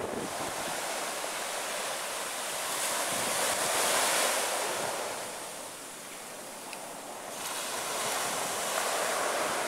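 Small sea waves breaking on a sandy beach and washing back in a steady hiss of surf, swelling louder about four seconds in and again near the end.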